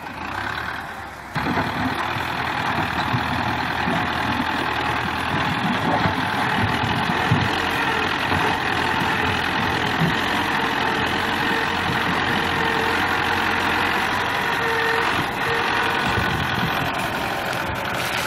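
Tractor engine running steadily while it works a front-end loader in earth and stones, getting louder about a second and a half in.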